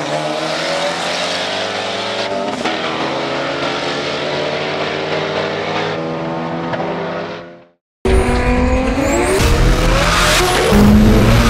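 Twin-turbo aluminium 5.3-litre LS V8 in a Lexus IS300 under power as the car pulls away down the strip, its engine note fairly steady before it fades out about seven seconds in. After a short gap, electronic dance music with whooshing sweeps takes over.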